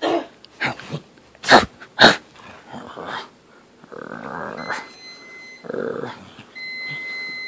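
Cockapoo playing tug-of-war with a plush toy: several short, sharp breathy bursts in the first three seconds, rough breathing noise after that, and two long, high, steady whines near the end.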